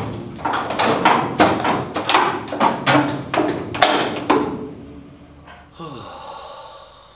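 Sharp knocks and clanks in quick succession, about a dozen over the first four seconds, then dying away.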